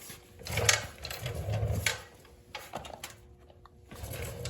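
Clicking and rattling of tools and parts being handled, mostly in the first two seconds, with fainter handling noise near the end.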